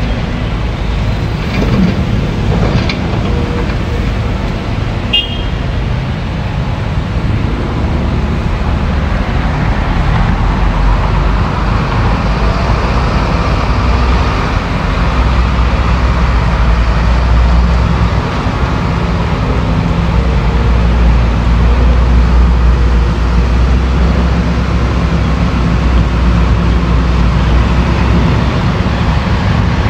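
Diesel engine of a Caterpillar hydraulic excavator running steadily as the machine works, with a few knocks in the first five seconds.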